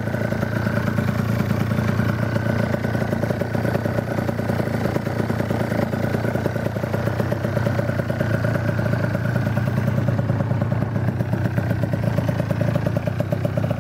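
Yamaha Aerox scooter's two-stroke single-cylinder engine running steadily through a Yasuni exhaust, its pitch holding constant throughout.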